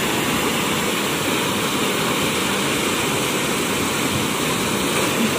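Canal water rushing steadily through the channel under a concrete bridge, a constant unbroken rush with no let-up.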